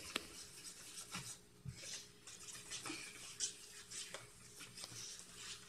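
Spoons stirring and scraping a watery flour-and-lotion mixture in disposable plastic trays: faint, irregular scrapes with light clicks.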